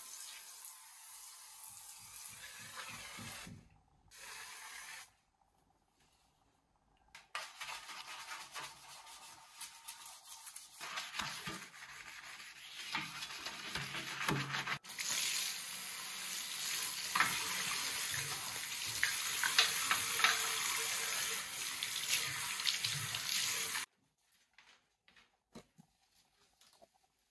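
Tap water running into a ceramic bathroom basin, then a stiff-bristled brush scrubbing the basin and drain in quick scratchy strokes for several seconds. The tap then runs steadily again for about nine seconds to rinse the sink and is shut off suddenly, leaving only a few faint light knocks as the basin is wiped with a cloth.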